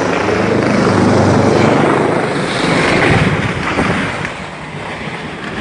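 Helicopter running close by, its rotor blasting a dense rushing downwash over the microphone; the rushing eases off somewhat near the end.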